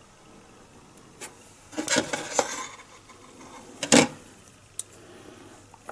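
Small plastic model-kit parts being handled and pressed together: a short stretch of plastic scraping and rubbing about two seconds in, then a sharp click near four seconds as a piece is pushed into place, with a few faint ticks around them.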